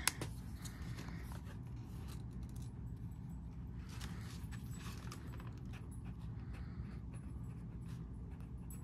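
Faint scratching of a Uni pen writing on paper sticky page flags, with light rustling of paper handling and a sharp click at the start.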